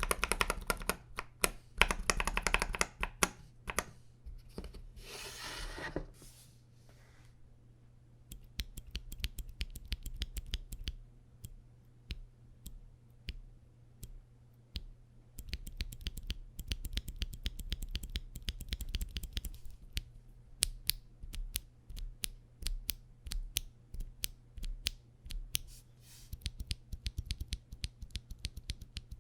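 Typing on a KBD67 Lite R3 mechanical keyboard fitted with stock Akko Sponge tactile switches: fast runs of keystrokes broken by pauses, then single keypresses spaced a fraction of a second apart near the end. The reviewer takes the switches' Kailh-style latch housing to give them a notably clacky sound.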